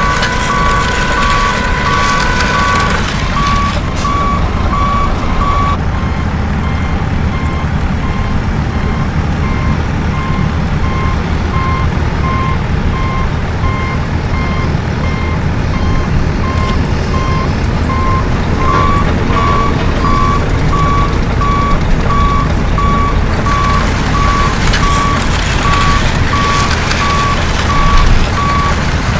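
Truck reversing alarm beeping at a steady even rate over a low engine rumble, with a steady held tone during the first few seconds.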